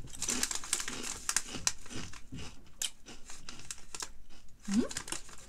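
Small plastic crisps packet crinkling and rustling as it is handled, in dense irregular crackles. A short rising vocal sound near the end.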